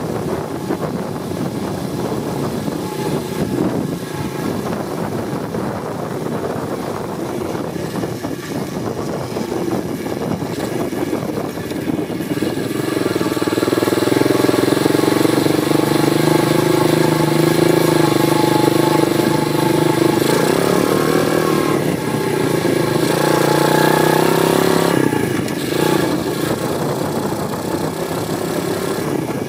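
Apollo 125cc pit bike's single-cylinder four-stroke engine pulling the bike along, heard from the rear fender. The revs rise and fall unevenly at first. From about halfway it runs louder and holds steady revs for around ten seconds, dipping briefly once, then eases off near the end.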